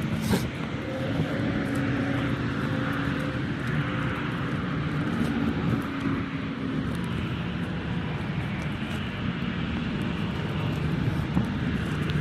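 Heavy diesel engine running steadily, its pitch shifting up and down a little as engine speed changes.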